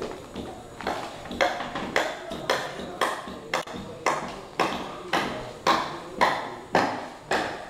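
Footsteps on a bare concrete floor, even and about two a second, each step a sharp knock with a short echo from the empty concrete rooms.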